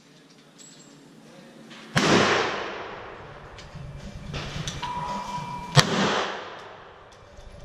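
Pistol shots from shooters firing side by side: two loud shots, about two seconds in and near six seconds, each followed by a long echo. Quieter shots sound in between.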